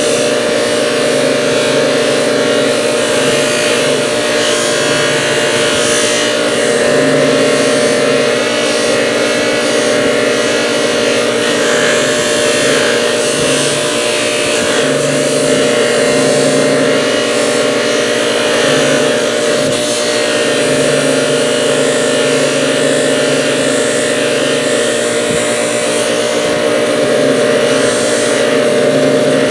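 Motor-driven polishing wheel running steadily as a pair of steel needle-nose pliers is buffed against it: a constant motor hum with a shifting hiss from the wheel on the metal.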